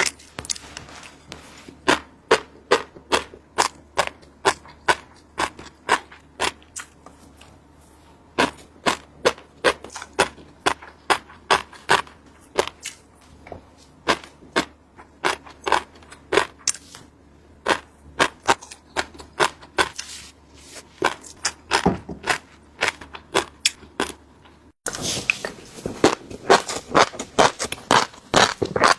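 Fish roe popping: a close, dense run of sharp, irregular crackling clicks, several a second, as the eggs burst.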